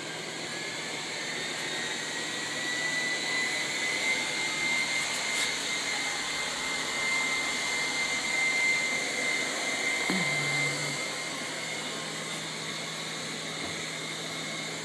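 Lefant M201 robot vacuum running just after being switched on: a steady whirr from its suction motor with a thin high whine. The whine rises slightly in the first second or two as the motor spins up.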